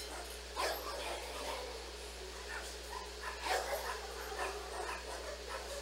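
A dog barking in short, irregular barks, the loudest about three and a half seconds in.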